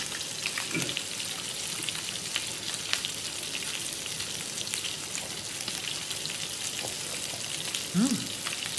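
Steady sizzle of meat frying in a pan.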